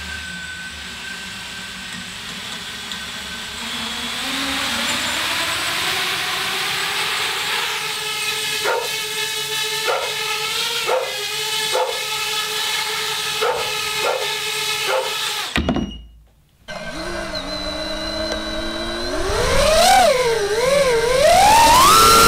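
ImpulseRC Helix racing quadcopter's brushless motors and propellers spinning up to a hover: a whir that rises over the first few seconds, then a pitched motor whine that steps up and down in several quick throttle blips. About two-thirds through it breaks off, and a different whine follows, rising and wavering in pitch.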